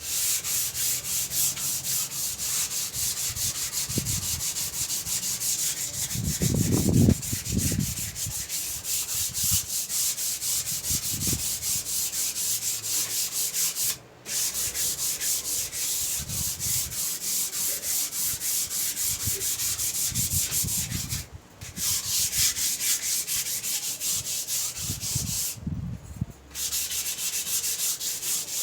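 120-grit sandpaper rubbed over a sealed wooden surface in quick, even strokes, with a few short pauses, sanding the finish smooth before varnish. A brief low sound about seven seconds in, and a few fainter ones later.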